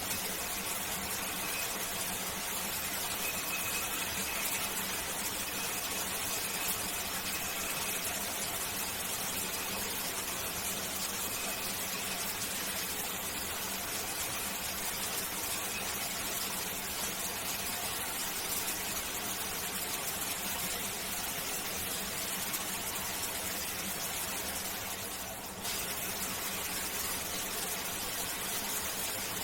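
Shower water spraying steadily, an even hiss. A faint high whine runs through the first several seconds.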